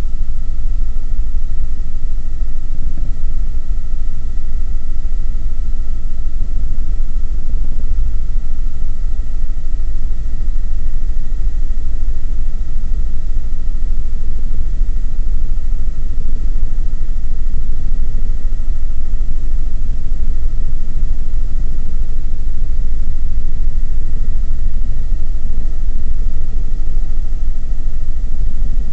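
Helicopter engine and rotors heard from inside the cabin in steady cruise: a loud, deep rumble with a steady high whine riding over it.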